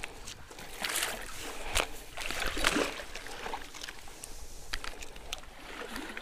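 Water sloshing and splashing as someone wades through deep water. It comes in irregular swishes, the biggest about a second in and again around two to three seconds in, with small clicks between them.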